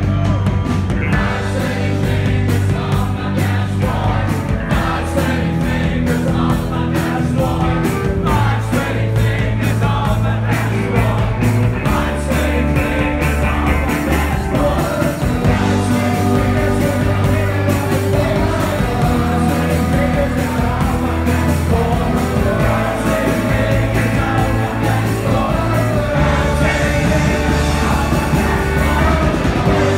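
Live rock band playing loud, with a singer over a held, slowly changing bass line, heard from inside the crowd.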